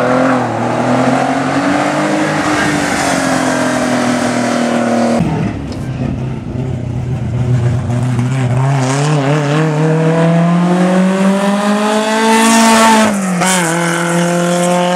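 Historic racing cars' engines at full throttle on a hill climb: first a Porsche 911's flat-six held at high revs, then, after a break, another car's engine climbing steadily through a gear for several seconds before its note drops sharply at an upshift near the end.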